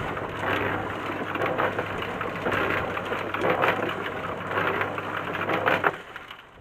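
Portable concrete mixer running with its drum tipped, wet concrete mix churning and sliding out of the drum into a wheelbarrow with a gritty, rain-like rush. The motor's steady hum and the churning stop about six seconds in.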